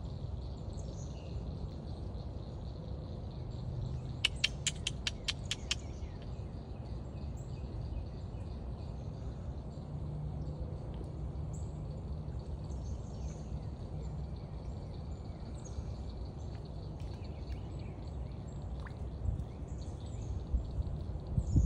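Swamp ambience: scattered faint bird chirps over a steady high hum and a low rumble, with a quick run of about eight sharp clicks about four seconds in.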